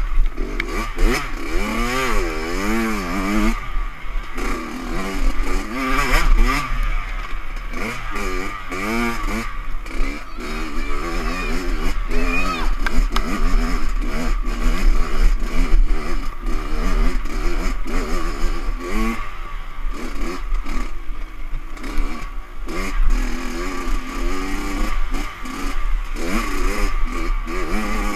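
Enduro dirt bike engine revving up and down continuously while being ridden over a rough trail, its pitch rising and falling every second or two, heard from the rider's helmet camera.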